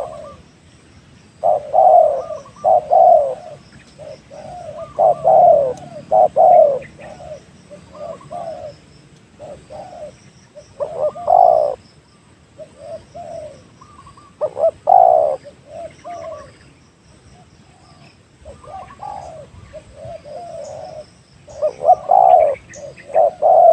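Spotted dove cooing: loud phrases of several low, rolling coo notes, repeated every few seconds. Small birds chirp faintly in the background.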